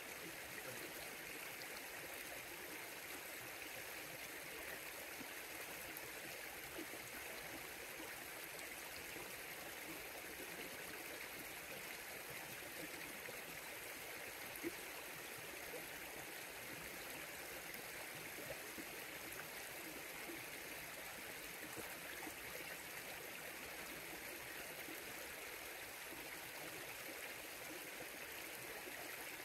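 River water flowing steadily over rocks, a continuous rushing babble with no changes.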